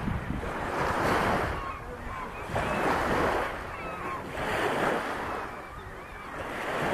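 Small waves washing onto the shore in swells about every two seconds, with wind buffeting the microphone and faint bird calls over the water.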